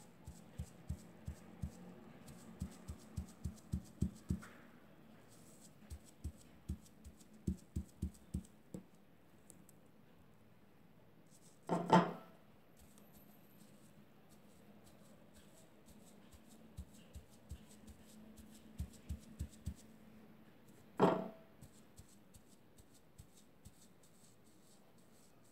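A sponge dabbing fabric paint through a plastic stencil onto cloth: runs of soft, quick taps, about three or four a second, with pauses between. Two louder knocks come about halfway through and near the end.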